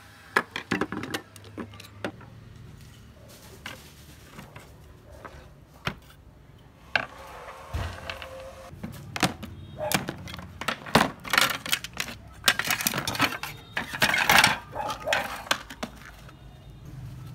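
Clinks and knocks of a screwdriver and loose metal parts on a wooden table as a rusted metal camera housing is taken apart, growing into a busier clatter in the second half.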